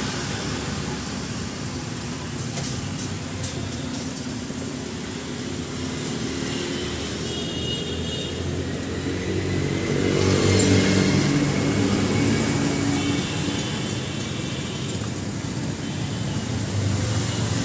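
Steady road traffic, with a motor vehicle's engine passing louder about ten seconds in.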